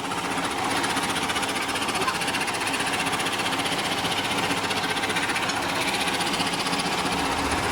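Sawmill machinery running with a fast, steady rattling beat.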